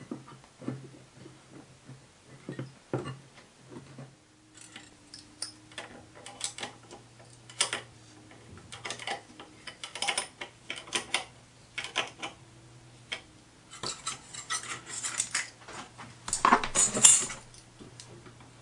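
Irregular clicks and metallic clinks of small parts and tools being handled while a digital readout scale and its aluminium cover are fitted to a lathe's cross slide, with a louder clattering burst a second or two before the end.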